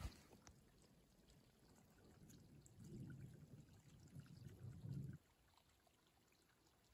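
Near silence: faint outdoor ambience, with a soft low rumble from about two and a half to five seconds in that cuts off suddenly.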